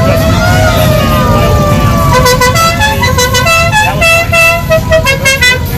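A musical car horn plays a quick tune of short stepped notes over the engine noise of slowly passing cars. Before it, a siren-like tone glides up and down in pitch during the first second or so.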